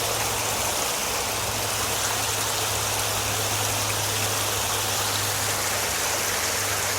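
Rain-fed floodwater running down a ravine stream bed: a steady, unbroken rush of water, with a steady low hum underneath.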